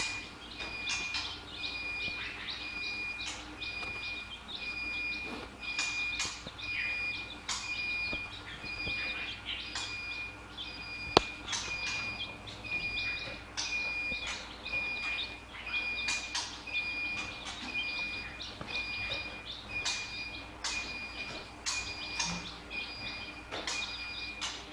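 Many birds chirping in an aviary, with an evenly repeated high pip running steadily underneath and one sharp click about halfway through.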